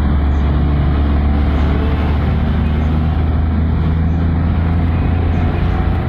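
A car driving, heard from inside the cabin: a steady low rumble of engine and road noise.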